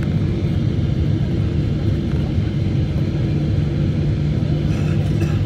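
Steady cabin rumble of a Boeing 777-300ER descending on approach, its GE90 engines and the airflow heard from a window seat inside the cabin.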